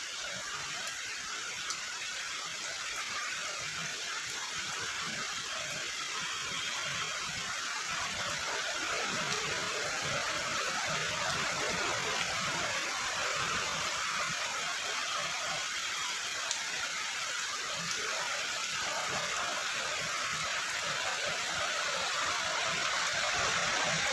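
Heavy rain falling steadily, an even hiss that builds a little over the stretch, with a few sharp single ticks of drops here and there.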